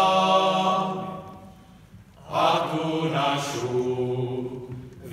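Men's folk singing group singing a folk song unaccompanied in several voice parts. A held chord fades out about a second and a half in, and after a short pause the next line begins.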